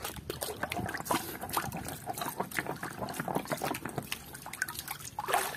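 Water splashing and sloshing in a plastic tub as a hand swishes and scrubs a muddy toy under the surface, in many small irregular splashes.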